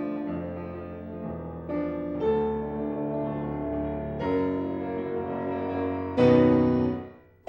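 Piano playing slow, sustained chords that change every second or two; a louder chord is struck about six seconds in and dies away almost to silence just before the end.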